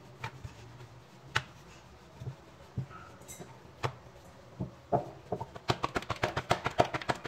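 Rolling pin working roti dough on a board: a few scattered knocks, then from about five seconds in a fast, regular run of sharp clacks, several a second.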